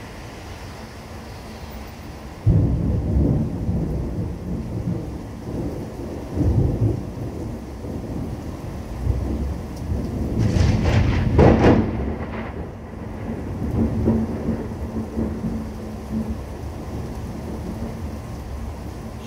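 Thunder during a severe thunderstorm: a sudden loud clap about two and a half seconds in, then long rolling rumbles with a sharper crackling peak around the middle, over steady rain.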